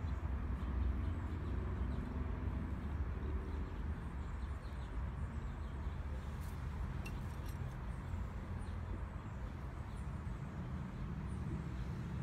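Outdoor background: a steady low rumble of distant traffic, with no clear event standing out.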